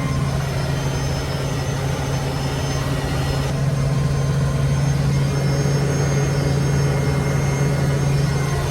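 Humvee's diesel V8 running under way: a steady low drone with a constant hum, growing slightly louder about halfway through.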